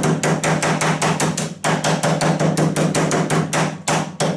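Hammer blows flattening a piece of aluminium, struck fast at roughly six blows a second, with a brief pause about a second and a half in and another near the end.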